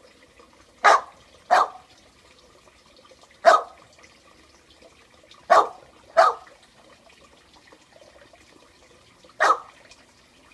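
Staffordshire Bull Terrier barking: six loud, short barks, two of them in quick pairs about half a second apart, with pauses of a few seconds between.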